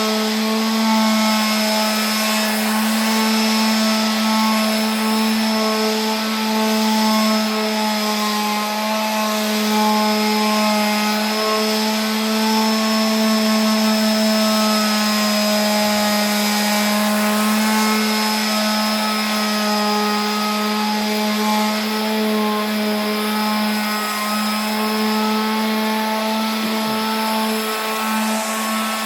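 A motor running steadily at one even pitch, with slight wavers in pitch.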